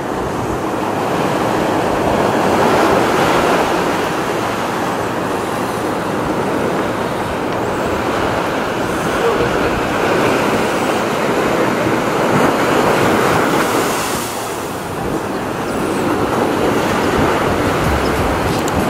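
Ocean surf washing on a beach: a steady rush of noise that swells and eases, dipping briefly near the end.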